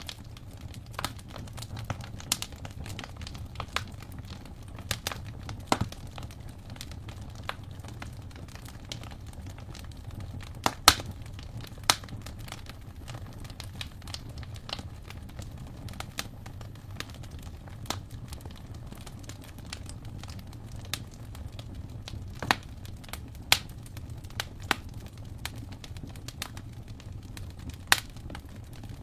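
Wood fire burning in an open fireplace: a steady low rumble of flames under constant irregular crackling and sharp pops, with a few louder pops about 11, 12 and 23 seconds in.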